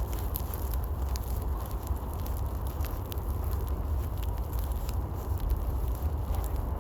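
Heavy blizzard wind buffeting the microphone as a steady, loud low rumble, with scattered light crunches of footsteps in powdery snow.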